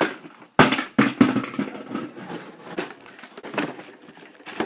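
A sharp knock about half a second in, then light clattering and tapping as small objects are handled.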